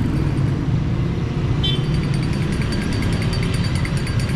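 Street traffic noise: a motor vehicle engine running nearby as a steady low rumble. From about two seconds in, a faint, high, fast ticking joins it.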